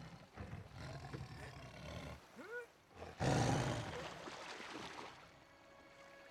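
Tiger growling and roaring, a low rumble first, then a loud sudden roar about three seconds in that fades away over the next two seconds.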